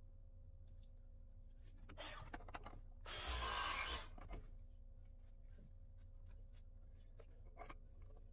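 Faint hand work with pipe fittings: a short rasping scrape lasting about a second, about three seconds in, with a weaker scrape just before it and scattered light clicks.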